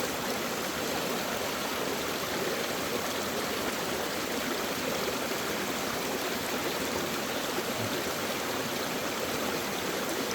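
Mountain stream flowing: a steady rush of running water with no breaks or changes.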